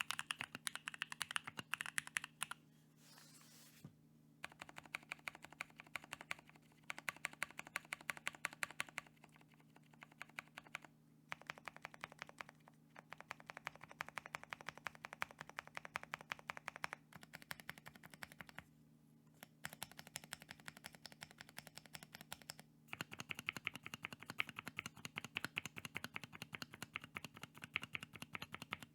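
Typing on a Bakeneko 60 mechanical keyboard with Kiwi tactile switches and PBT keycaps: fast runs of keystroke clacks broken by brief pauses, over a faint steady hum.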